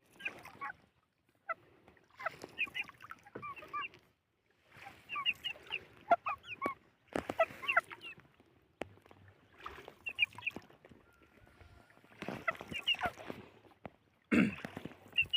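Domestic poultry calling in bouts of short honks and squawks, each bout about a second long with short pauses between.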